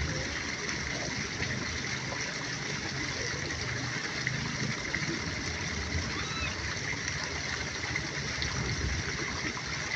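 Steady rushing noise of running water, with faint distant voices.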